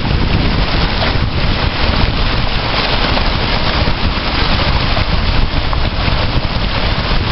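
Shallow, fast stream rushing and splashing over stones and around driftwood close to the microphone: a steady, loud rush with a deep low rumble.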